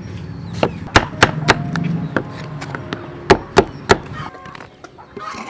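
A large kitchen knife chops through a peeled green vegetable onto a wooden chopping block: about eight sharp chops at an uneven pace, in two quick runs, stopping about four seconds in.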